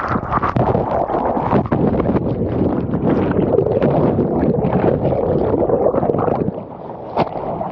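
Churning, bubble-filled surf water heard through a submerged camera: a steady muffled rush that eases briefly near the end.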